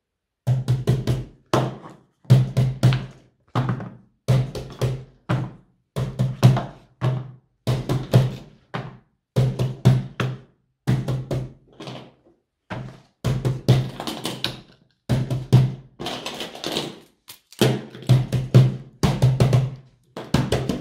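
Background music with a steady drum beat, starting about half a second in.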